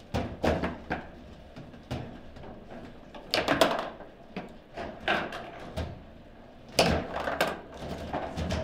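Table football in play: irregular sharp clacks and knocks of the ball being struck by the player figures and of the rods and figures banging, with quick clusters of hits about a third of the way in and again past three-quarters.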